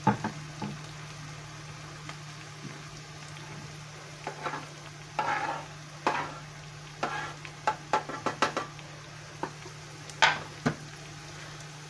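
Diced mushrooms sizzle quietly in a frying pan. From about four seconds in comes a run of knocks and scrapes as a metal box grater and wooden cutting board are handled and grated cheese is tipped into a saucepan of cream.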